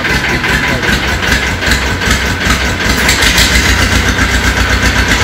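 Tafe 25 DI two-cylinder diesel tractor engine idling with an even, rhythmic pulse, a little louder from about three seconds in; it runs smoothly, which the seller's side calls a great sound.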